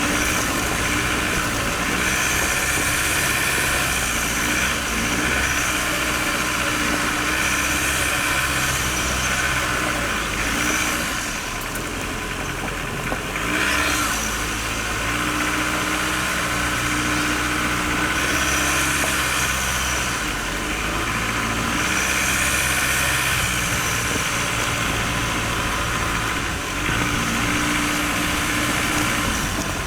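Ford Ranger FX4's 2-litre turbodiesel engine running under load as the bakkie climbs a rough dirt track in 4x4, with a rushing noise over it that swells and fades several times.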